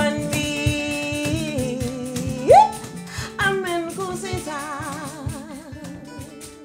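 Live acoustic band music: long held sung notes over light rhythmic accompaniment, with a quick upward swoop about two and a half seconds in and a wavering vibrato note later on.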